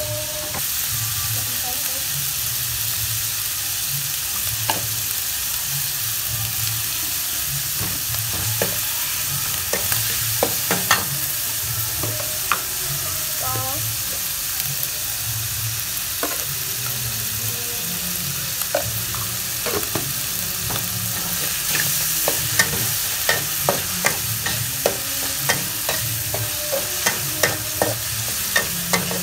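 Minced pork, garlic and green onion sizzling in a metal wok while a metal spatula stirs and scrapes through them. Short clicks of the spatula against the pan come now and then, then thick and fast over the last seven seconds or so.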